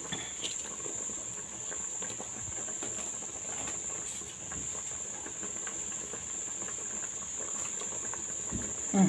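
Pot of egusi soup boiling, with scattered small pops and bubbling crackles. A steady high-pitched tone runs throughout.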